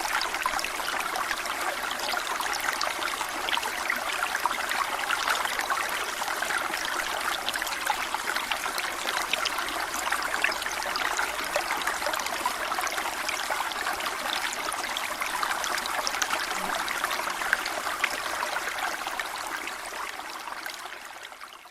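Small stream running over stones, a steady babble and trickle, fading out near the end.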